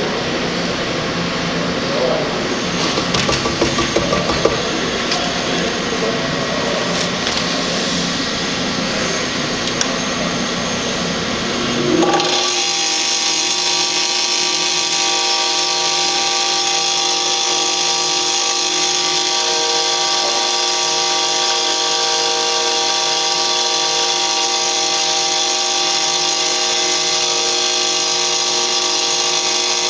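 IKA MF 10 micro fine grinder running. For the first twelve seconds it gives a rough, noisy sound with irregular crackles; then, about twelve seconds in, the sound changes abruptly to a steady high whine.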